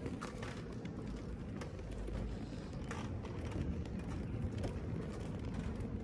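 Manual wheelchair being pushed over a steel-mesh walkway: a steady low rumble from the wheels on the grating, with faint irregular clicks and taps.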